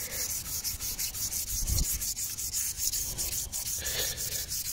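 Fine 2000-grit sandpaper rubbed by hand on a kerbed alloy wheel rim, in quick back-and-forth strokes about five a second. The strokes are smoothing out kerb damage to the wheel.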